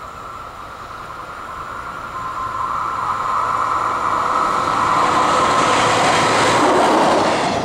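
Yellow rail maintenance vehicle approaching along the track, its running noise growing steadily louder as it draws close. A steady high tone sounds throughout.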